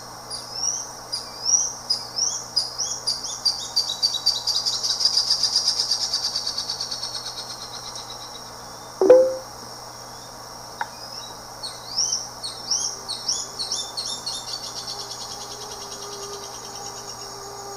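Crescent-chested puffbird (barbudo-rajado) singing two bouts of high, thin upslurred whistles that speed up into a fast trill and fade away, the second bout starting about twelve seconds in. A sharp knock about nine seconds in.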